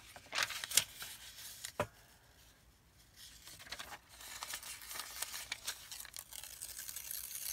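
Old lined paper being handled and torn by hand: a few crisp rustles and taps in the first two seconds, then a long, slow crackling tear from about four seconds in.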